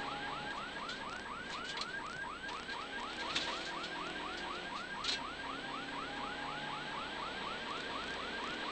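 An electronic siren on a rally safety car gives a fast, repeating yelp, about four to five rising-and-falling sweeps a second, over the low hum of the car's engine. A couple of sharp clicks sound near the middle.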